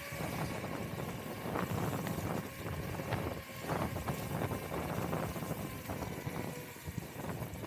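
Wind noise on the microphone and road noise from a Kaabo Wolf Warrior X GT electric scooter being ridden over wet pavement, a steady rush with a few light knocks scattered through it.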